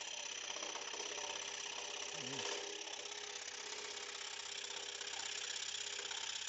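Axminster AP535SS 21-inch scroll saw running steadily, its reciprocating blade giving a fast, even chatter as it cuts through a wooden board.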